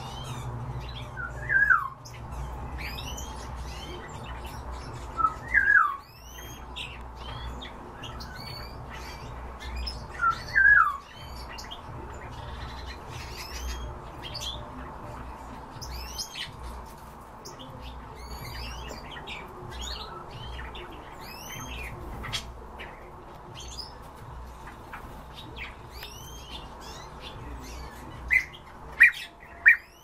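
Cage birds chirping, many quick high falling chirps throughout, with three louder falling calls about 2, 6 and 11 seconds in and a few sharp loud calls near the end. A steady low hum runs underneath.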